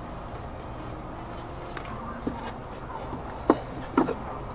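Plastic air box lid of a Toyota Land Cruiser 100 Series being lifted and worked off the air filter, giving a few light plastic clicks and knocks, the loudest two about three and a half and four seconds in, over faint steady background noise.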